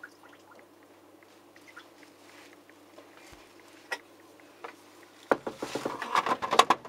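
A few faint ticks, then from about five seconds in a quick run of loud plastic knocks and rattles: the heat pump dryer's condensed-water tank being slid back into its drawer slot.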